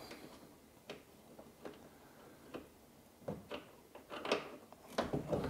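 Faint, scattered light clicks and ticks of a plastic suspension nut being unscrewed by hand on a velomobile's rear swing arm, with hand tools touching the parts; the sharpest tick comes about four seconds in.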